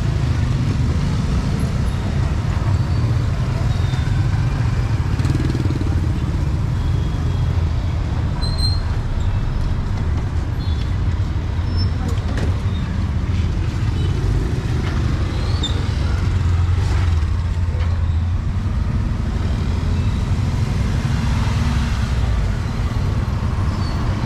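Steady street traffic noise, with motorbike and car engines running along the road, and people's voices faint in the background.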